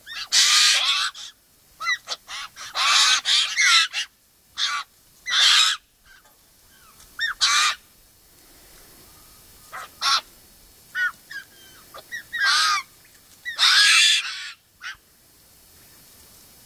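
Large birds calling loudly: harsh, honking calls in about a dozen bursts, most under a second long, with quieter gaps between.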